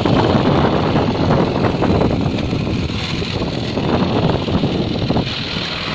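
Wind buffeting the microphone at sea, a loud, irregular rumbling noise.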